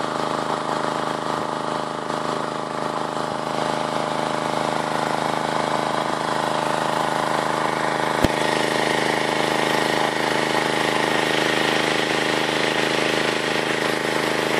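WP 30 petrol water pump's 6.5 hp four-stroke engine running at a steady speed, with an even hiss over it and a single click about eight seconds in.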